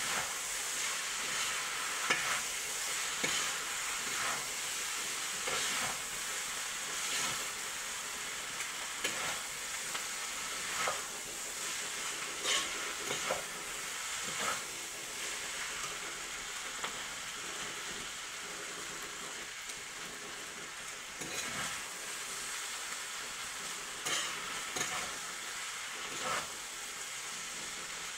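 Chow mein noodles sizzling in a hot pan as they are stir-fried, with irregular clicks and scrapes every second or two as metal tongs toss them against the pan.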